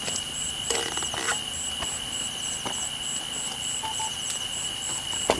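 Night insects calling: a steady high shrill trill under a higher chirp that pulses about two to three times a second. A few short cracks of dry branches being handled sound over it.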